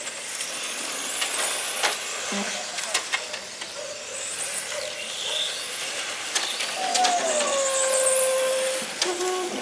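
Electric RC cars running on the track: high-pitched motor whine rising and falling as they pass, with a few sharp clicks. Near the end a lower tone slides down and holds for about two seconds.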